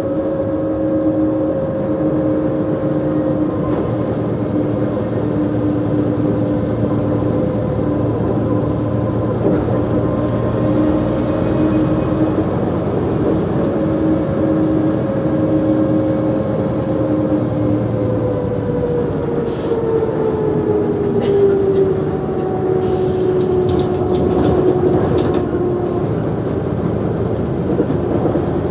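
Mercedes-Benz O345G articulated bus's diesel engine idling while the bus stands still, with a steady whine in two tones riding over the rumble. About twenty seconds in, the whine slides down in pitch and settles lower.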